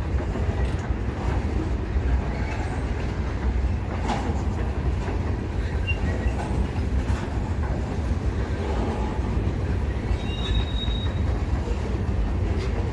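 Freight train cars rolling past at slow speed: a steady low rumble with wheels knocking over rail joints and faint wheel squeal, including one brief high squeal about ten seconds in.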